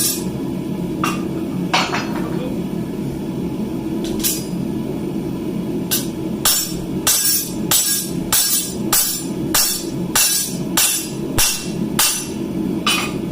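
Hammer blows on hot steel at the anvil: a few spaced strikes, then from about six seconds in a steady run of about two blows a second, over a constant low hum.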